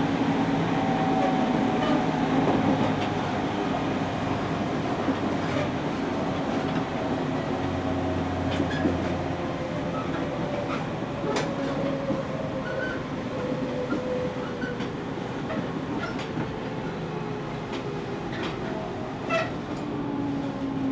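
JR Kyushu 813 series electric train running, heard inside the passenger car: hum from its Toshiba GTO inverter and traction motors, with tones that slowly fall in pitch, over wheel rumble and scattered clicks from the rails.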